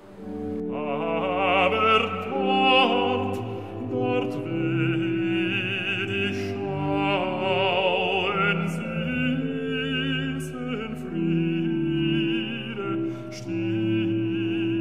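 Classical music with operatic singing: a voice with strong vibrato over sustained orchestral notes, coming in about half a second in.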